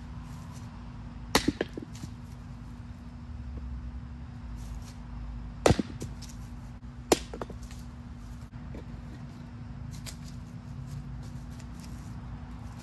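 A hatchet splitting kindling on a wooden stump chopping block: three sharp chops, the first about a second and a half in, followed by a couple of quick knocks, then two more around six and seven seconds in. A steady low hum runs underneath.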